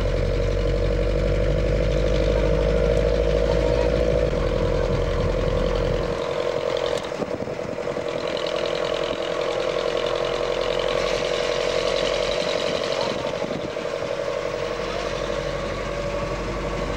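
Engine and road noise of a moving vehicle heard from inside it: a steady buzzing drone with a held whine, its low rumble dropping away about six seconds in.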